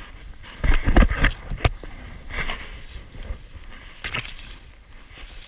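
Leafy branches rustling and cracking as a chimpanzee bends them into a nest, close to its harness-worn camera, with thumps of contact on the camera. A dense run of cracks and rustles comes about a second in, then lighter ones twice more.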